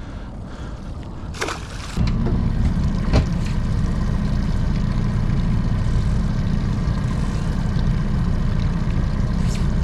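A short splash about a second in, then a 50 hp outboard motor running steadily at low speed, a constant low rumble.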